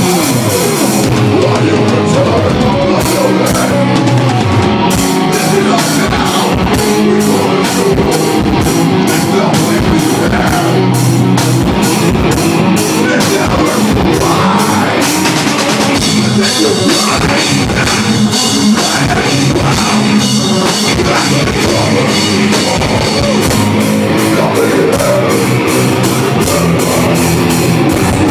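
Live rock band playing loud, with a drum kit hitting fast and regularly under guitars.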